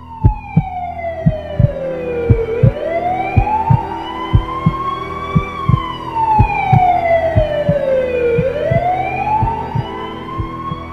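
A heartbeat sound effect thumps in pairs, about one beat a second, under an emergency vehicle siren that wails slowly, its pitch falling and rising over about three seconds each way.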